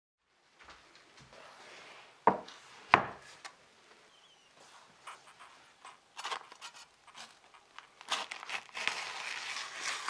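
Two sharp knocks a couple of seconds in, then oven-browned baking paper crinkling as a knife starts cutting into the paper parcel, the crinkling busiest near the end.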